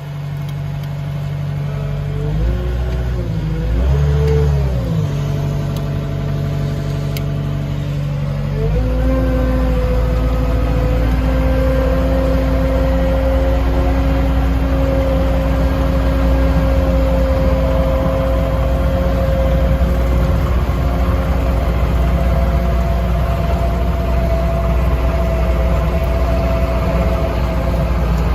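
Vehicle engine running close by. It revs up and down a few times a couple of seconds in, then about nine seconds in picks up to a louder, steady higher speed that holds.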